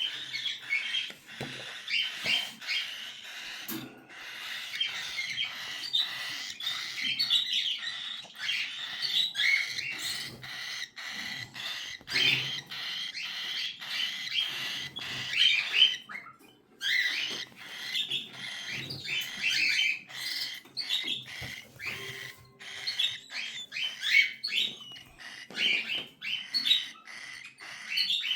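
Cockatiel chicks calling almost without a break: dense, rapid high chirping mixed with many short clicks, with a short pause just past halfway.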